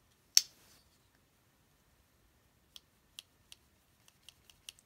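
Small clicks from a Spyderco Dragonfly pocketknife being handled during pivot-tension adjustment: one sharp loud click about a third of a second in, then a run of faint light clicks in the second half.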